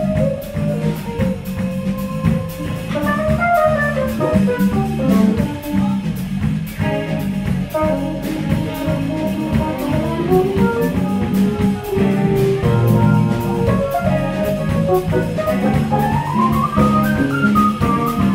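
Jazz fusion band playing live: drum kit keeping a busy, steady beat under electric bass, keyboards and electric guitar, with a quick lead melody line on top that climbs in a rising run near the end.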